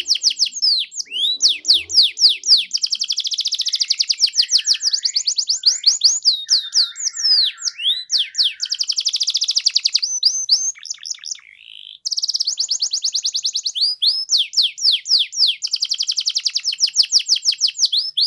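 Domestic canary singing a long, fast song of rapid trills and sweeping whistled notes, with a brief break about eleven seconds in before it resumes.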